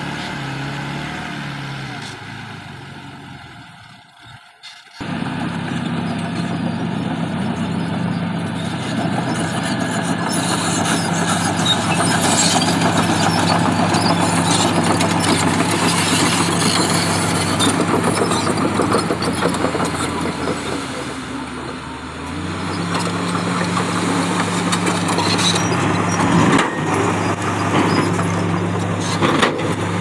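Diesel engine of a Nissan Diesel dump truck running steadily while its hydraulic hoist raises the tipper bed to dump a load of soil. The sound fades almost away about four seconds in, then comes back abruptly.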